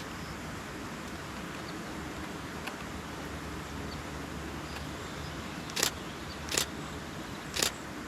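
Three single shutter releases of a Canon Rebel T7i DSLR, each a short sharp click, spaced about a second apart, over a steady outdoor hiss.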